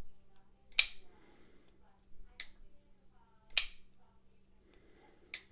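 Titanium Hinderer XM-18 folding knife on Skiff ceramic bearings being flipped open and dropped shut: four sharp clicks, one to one and a half seconds apart, as the blade snaps into place.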